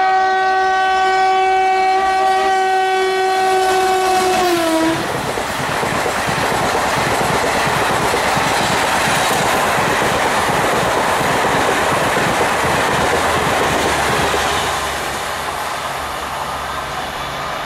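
Indian Railways locomotive horn sounding steadily for about five seconds, dropping in pitch as the locomotive passes, then the rushing clatter of the train's wheels and coaches going past, easing off near the end.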